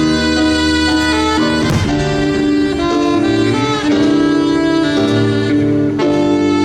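Live jazz band playing a slow tune, a saxophone carrying the melody over sustained accompaniment.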